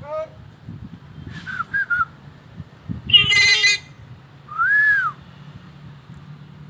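Common hill myna giving a few clear rising-and-falling whistles and, about three seconds in, a loud harsh call.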